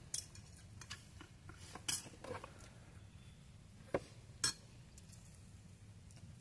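Utensils clinking against plates and dishes during a meal: a handful of short, sharp taps, the strongest about two seconds in and twice around four seconds in.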